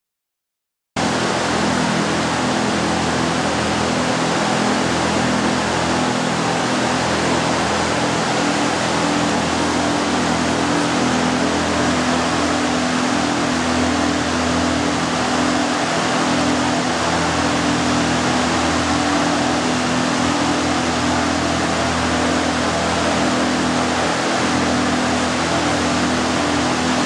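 A running fan's steady rushing noise with a low hum underneath, starting about a second in.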